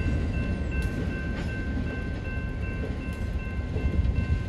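EMD SD9 diesel locomotive rumbling steadily as it leads a freight train through a grade crossing, with the crossing bell ringing over it in steady high tones and a few light clicks from the wheels.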